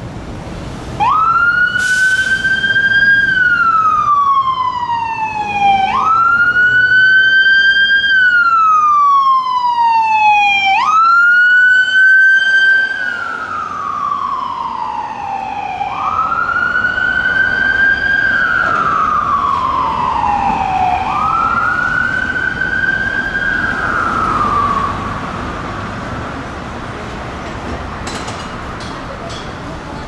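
Emergency vehicle siren wailing as it passes, rising quickly and falling slowly in pitch about every five seconds, five times over, then fading out.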